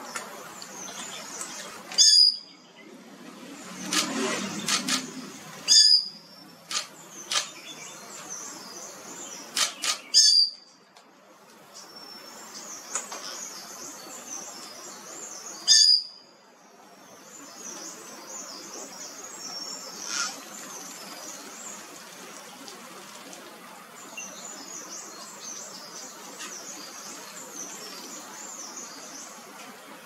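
Hill mynas giving short, loud, sharp calls, four standing out about every four seconds in the first half, with a few softer calls between them. Behind them runs a steady high chirping of smaller birds.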